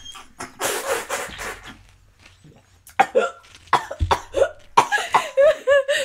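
A person spraying out a mouthful of coffee, then coughing and spluttering in short, sudden fits.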